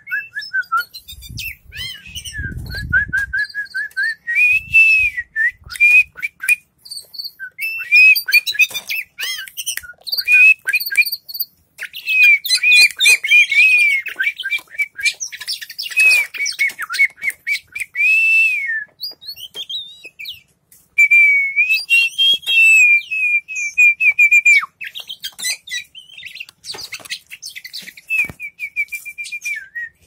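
Oriental magpie-robin (kacer) singing: a long run of loud whistled phrases, with fast repeated notes and harsh chattering notes between them.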